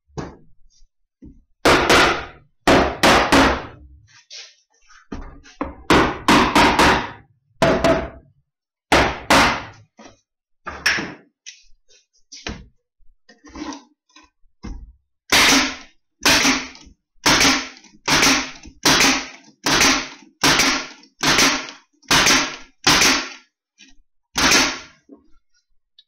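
Pneumatic nail gun firing into the pine finger joints of a hive box, about thirty sharp shots: scattered groups at first, then a quick steady run of shots in the second half.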